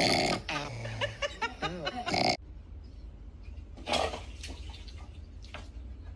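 An animal's pitched vocal sounds, wavering up and down in pitch for about two seconds, then an abrupt cut to a much quieter stretch with a few short faint sounds.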